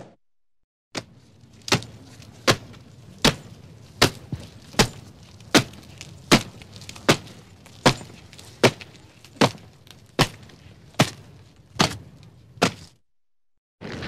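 Footsteps walking at an even pace: about fifteen sharp single steps, roughly one every 0.8 seconds, starting about a second in and stopping about a second before the end.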